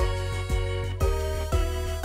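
Background music with a steady beat of about two beats a second over held bass notes and a melody.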